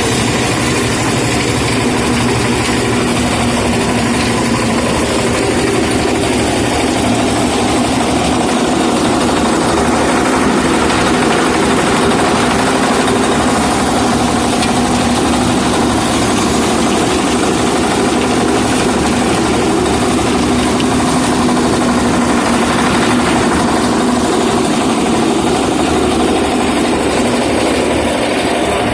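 An engine running steadily at constant speed, with a continuous hum and no changes in pace.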